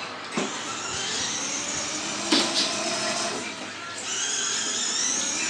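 A small electric motor whining steadily, with a few short clicks about half a second, two seconds and four seconds in.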